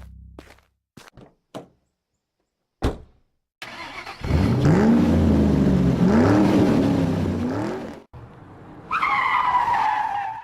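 A car engine revving twice, its pitch climbing each time, followed about a second later by a short tire screech that falls in pitch.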